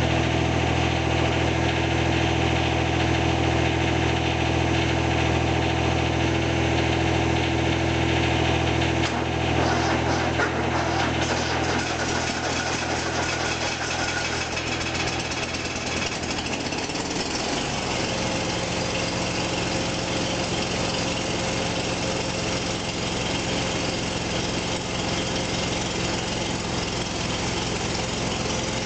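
Tractor engines idling. The steady note of the John Deere 455 diesel changes about a third of the way in, and from a little past halfway a different engine note takes over: the hard-starting second tractor running after a cold start.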